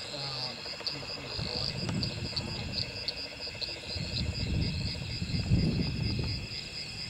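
Crickets chirping steadily in a night chorus. A low rumbling noise swells under it in the middle stretch and is loudest about five to six seconds in.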